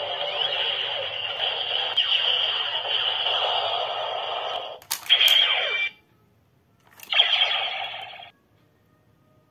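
DX Decadriver toy belt's built-in speaker playing an electronic sound effect and music, with the thin, narrow sound of a small speaker. A sharp click just before the five-second mark is followed by a short loud blast. A second click a couple of seconds later sets off another short burst, which cuts off suddenly a little past eight seconds.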